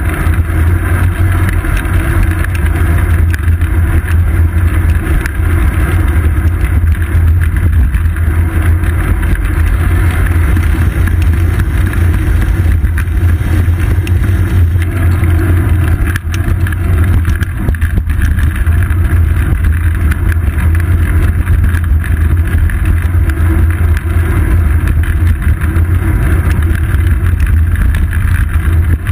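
Steady loud rumble of wind and road vibration from a bicycle rolling over asphalt, picked up by a seat-post-mounted GoPro Hero 2, heaviest in a deep low drone.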